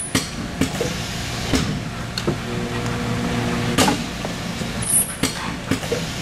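Automated assembly machine with a film feeder running: a steady hum, with sharp clicks and knocks at irregular intervals as the air-driven tooling head strokes down and up.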